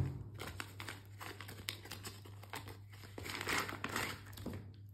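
Clear plastic wrap crinkling as it is peeled off a new wristwatch: a dense run of small crackles, busiest about three and a half seconds in.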